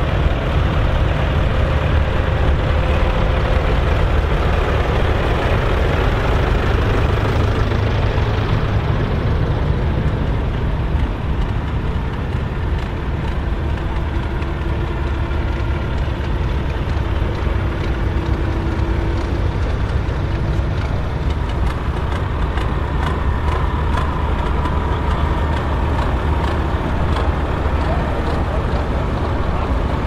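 A row of Volvo BM diesel tractor engines idling together, a steady low running sound with no break.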